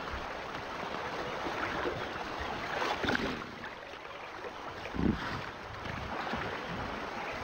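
Hippos churning river water: continuous sloshing and splashing, with a sharper splash about three seconds in and a heavy, deep splash about five seconds in.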